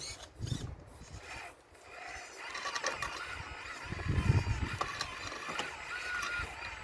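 Radio-controlled Caterpillar model excavator's electric motors whining, the pitch wavering and gliding as the machine moves, with a low thump about four seconds in.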